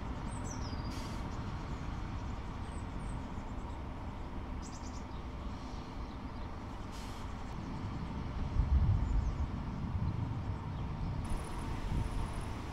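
Steady low outdoor rumble that swells louder in gusts about two-thirds of the way through, with a few faint high bird chirps in the first five seconds.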